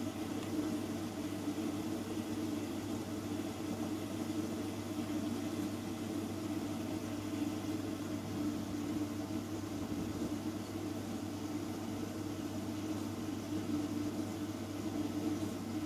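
Hoover All In One washing machine running mid-cycle with a steady low hum.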